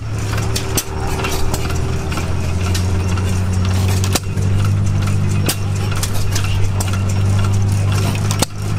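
An engine running steadily with a low, even drone, with sharp clicks and taps scattered over it.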